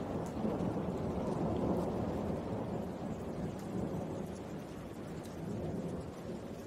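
Steady rain falling, with a low rolling rumble of thunder that swells and fades.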